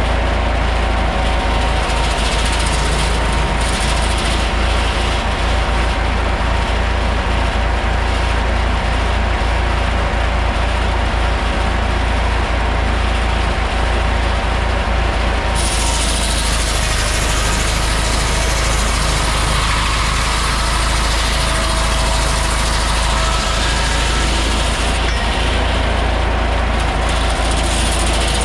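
Antique tractor engine running steadily while belt-driving sawmill machinery, a loud continuous mechanical drone with a low rumble and a steady hum. A little past halfway through, a brighter hissing noise joins in and carries on nearly to the end.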